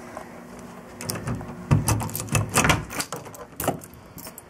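A wooden door's metal lever handle and latch clicking and rattling as the door is unlocked and opened, a quick run of sharp clicks and knocks.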